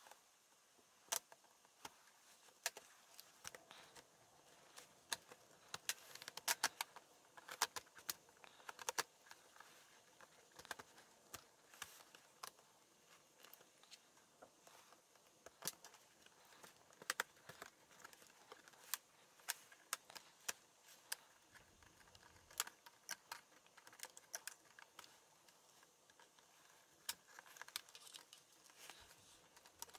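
Plastic pry tool working along the seam of an HP Pavilion laptop's plastic case: faint, irregular clicks and ticks, in quick clusters at times.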